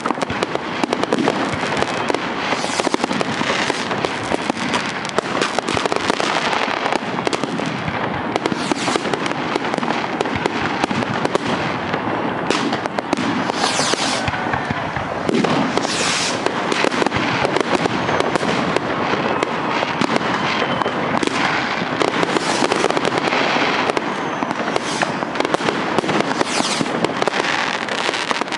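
Many fireworks and rockets going off at once: a dense, unbroken crackling and banging with no pause.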